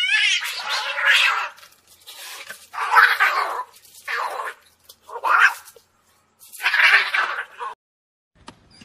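A frightened cat hissing and spitting defensively, in about five noisy bursts.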